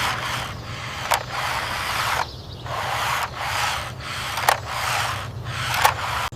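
Toy forklift being pushed across a hard surface, its wheels rolling and scraping in repeated strokes about a second long, with a short click between strokes.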